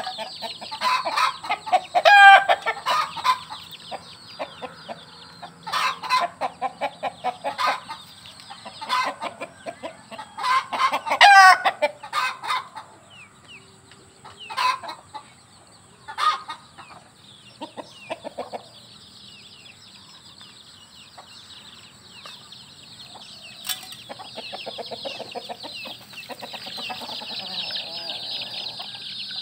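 A flock of free-range chickens clucking busily as they feed, with two louder, longer calls about two and eleven seconds in. The clucking thins out after about thirteen seconds, leaving a steady high chirring that grows louder near the end.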